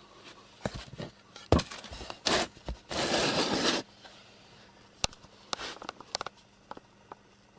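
Scattered handling noises: several sharp knocks and short scraping, rustling bursts, the longest a rustling scrape of under a second about three seconds in.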